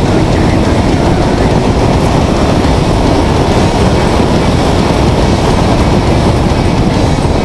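Ford Boss 302 Mustang's V8 running at speed on a road course, its engine mixed with rushing wind and road noise into a loud, steady din as picked up by a car-mounted camera.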